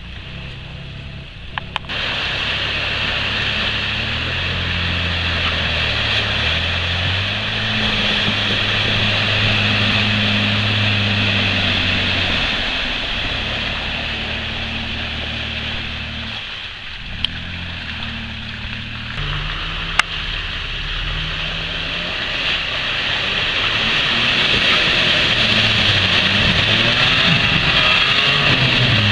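An off-road SUV's engine revving and labouring through deep mud, its pitch holding, stepping and gliding up and down as the throttle changes, over a steady hiss of spinning tyres and spray. Two sharp clicks come past the middle.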